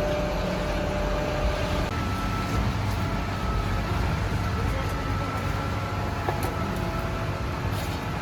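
Concrete truck's diesel engine running steadily, with a change in its note about two seconds in.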